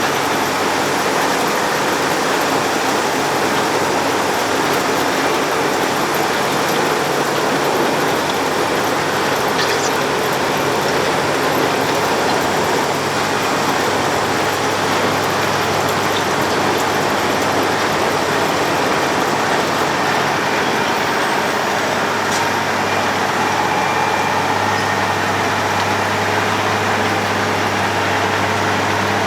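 Road planer at work milling the road surface: its diesel engine runs with a steady low hum under a dense, even rush of noise.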